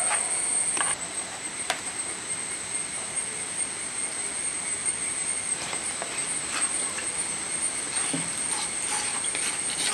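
Scattered short clicks and scrapes of a utensil working spice paste off a clay plate into a clay pot, over a steady high-pitched whine.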